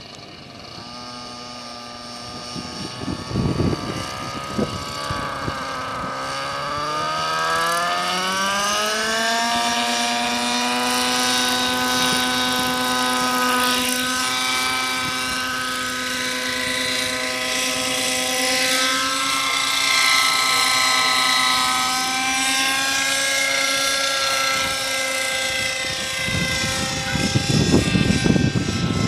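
RC model helicopter spooling up: its whine rises steadily in pitch over several seconds, then holds steady in flight with small wavers in speed. A rushing noise grows near the end.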